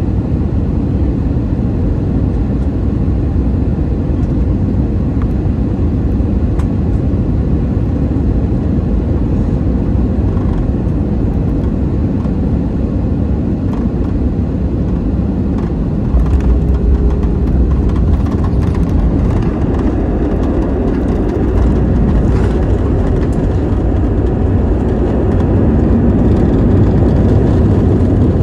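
Jet airliner heard from inside the cabin over the wing during landing: a steady engine and airflow rumble, then about halfway through a heavier low rumble as the wheels touch down and roll on the runway. Near the end it grows louder as the jet slows on the runway.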